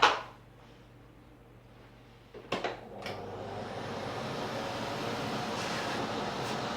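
A sharp knock, then two clicks about two and a half seconds in as the vintage Philips P74 canister vacuum cleaner is switched on. Its motor starts, and a steady rushing noise of motor and airflow grows louder over the next couple of seconds as it comes up to speed.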